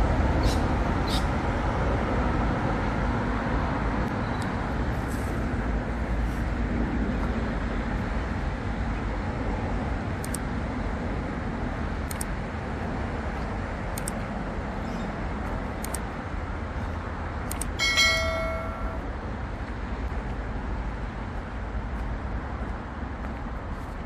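Steady low rumble of vehicle traffic, loudest at the start and slowly fading. Faint sharp ticks come about every two seconds in the middle, and a short ringing tone with several overtones sounds for about a second near the end.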